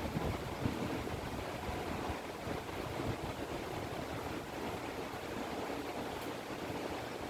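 McGraw Edison Happy Home box fan running on medium speed: a steady rush of air over a low motor hum, really quiet for a box fan.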